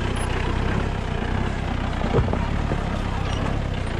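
Mahindra Bolero 4x4's diesel engine running steadily at low speed as the SUV crawls over a rocky dirt track, with a single knock about two seconds in.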